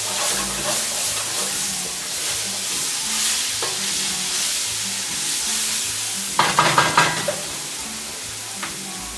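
Diced chicken, spices and garlic sizzling in oil in a pan while being stirred with a utensil, with repeated scraping strokes. About six and a half seconds in, the utensil scrapes and clatters louder against the pan for about a second.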